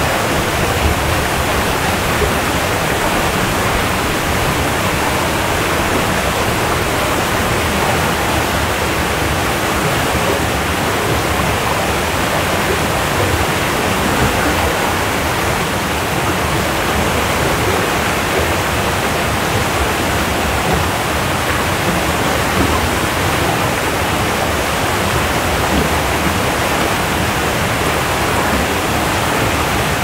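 Waterfall: falling water rushing in a steady, loud, unbroken roar.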